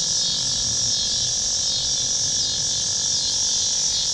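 Steady, high-pitched buzzing chorus of insects that does not change.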